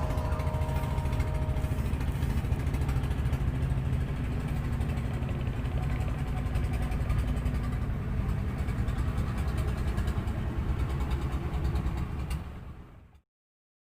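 Boat engine machinery running steadily with a low rumble; it stops abruptly near the end.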